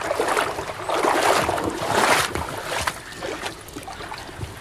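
Water splashing and sloshing in lake shallows for about three seconds, then dying down.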